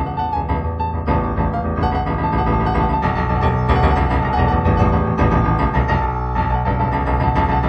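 Background music: improvised piano playing held, overlapping chords.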